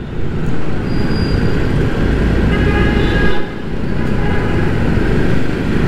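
Hero XPulse 200's single-cylinder engine running under way in city traffic, with heavy wind noise on the microphone. A vehicle horn sounds briefly about two and a half seconds in.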